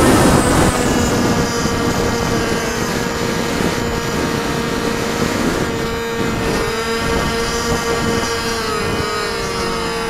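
Remote-control model airplane's motor and propeller, recorded from a camera on the plane in flight: a steady drone with a held whine. Rushing wind noise is heavy at the start and eases off within the first second.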